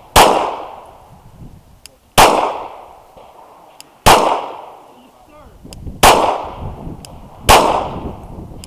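Gen 4 Glock 17 9mm pistol firing five deliberate shots, about two seconds apart, each ringing off briefly.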